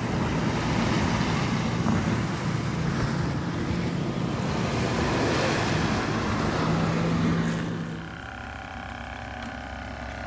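Small surf washing onto a sandy, rocky shore with wind, a steady rushing noise. About eight seconds in it gives way to a quieter steady motor hum with several tones, from an aerator bubbling a bait bucket.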